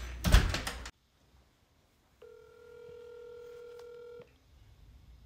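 A door shut with a bang just after the start. About two seconds in, a phone's ringback tone for an outgoing call sounds from the speakerphone: one steady ring lasting about two seconds.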